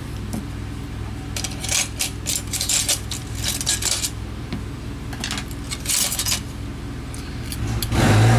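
Light metallic clicks and clinks in two flurries as opened Samsung Galaxy S8 phone frames and their small parts are handled and set down on a repair mat, with a louder bump near the end.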